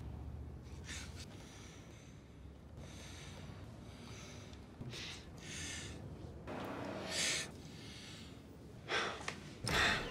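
A person breathing: a string of about seven separate in- and out-breaths, some sharp and gasp-like, the loudest two near the end, over faint room tone.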